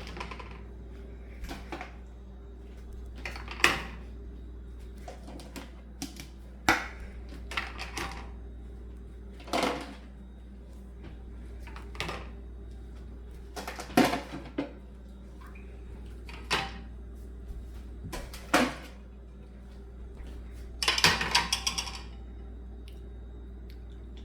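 Dinner plates being set one at a time into a dishwasher's bottom rack: a sharp clack every few seconds as each plate knocks against the rack and the plate beside it, with a longer rattle of clinks near the end.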